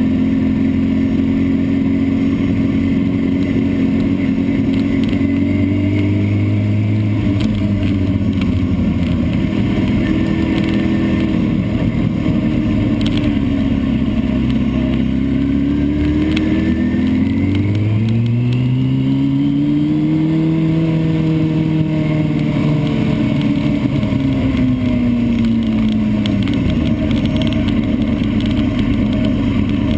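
Vehicle engine heard onboard on a race track, its pitch rising and falling with throttle and gear changes. The note climbs steeply about 17 seconds in and drops back near 26 seconds.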